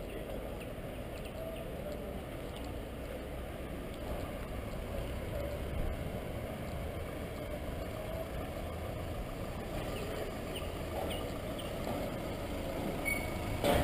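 Steady city street noise with a low rumble of traffic, growing a little louder near the end.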